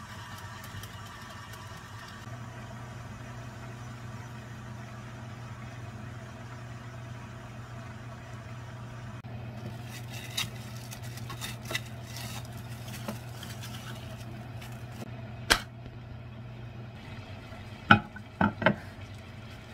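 Kitchen handling sounds over a steady low hum: plastic wrap crinkling and rustling as a bowl is wrapped, then a few sharp knocks near the end as the glass microwave turntable plate is handled. The hum stops shortly before the knocks.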